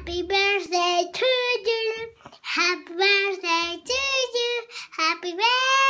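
A young girl singing a series of held notes with short breaks between them, with no accompaniment; the last note slides upward near the end.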